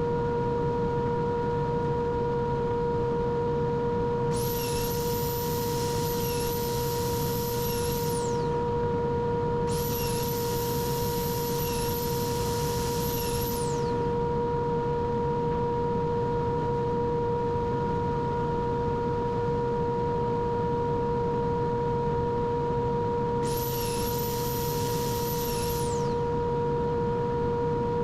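A machine runs with a steady hum. Three times a high hiss joins it for a few seconds and then cuts off sharply.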